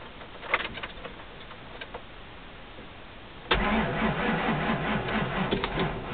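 A few light clicks, then the Ford F-250's starter cranking the engine in a rhythmic chug for about two and a half seconds without it starting: the dead battery has not yet taken enough charge from the LiPo jump packs.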